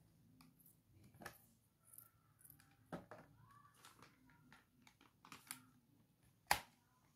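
Faint rustling and handling of a paper leaflet and cardboard toy packaging, with scattered soft clicks and one sharper click about six and a half seconds in.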